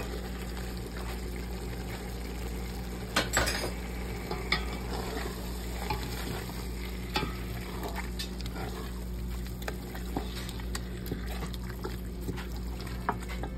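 Wooden spoon stirring beef chunks in a stainless steel pot, with a light sizzle as the meat starts to fry and scattered knocks of the spoon against the pot, the loudest about three seconds in. A steady low hum runs underneath.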